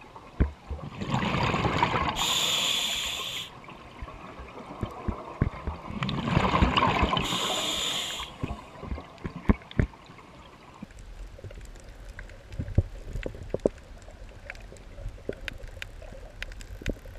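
Scuba diver breathing underwater through a regulator: two breaths about five seconds apart, each an inhale followed by a loud hissing, bubbling exhale. After that, quieter underwater ambience with a low rumble and scattered sharp clicks.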